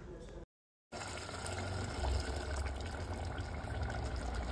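Steady liquid noise from a pressure cooker of chicken masala gravy on the stove, over a low hum, after a brief gap of silence about half a second in.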